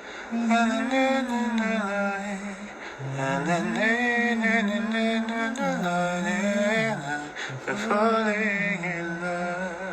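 A man singing a melody without words on 'na na na', in long held notes with a couple of short breaths between phrases.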